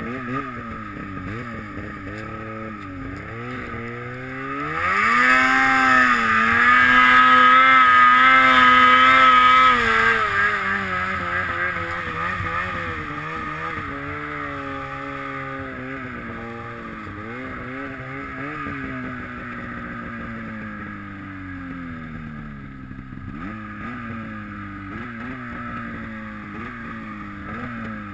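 Snowmobile engine running under load through deep powder, its pitch rising and falling with the throttle. About five seconds in it revs hard and loud for roughly five seconds, then eases back to a lower, wavering drone.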